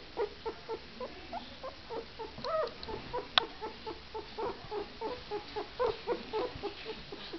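13-day-old Italian greyhound puppy whimpering in short, high squeaks, about three a second. A single sharp click about three and a half seconds in.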